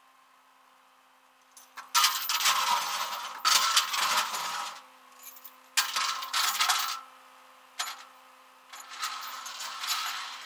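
Metal tie-down chain rattling and clinking as it is handled at the front of a pickup on a flatbed tow truck, in several jangling bursts of a second or two, starting about two seconds in.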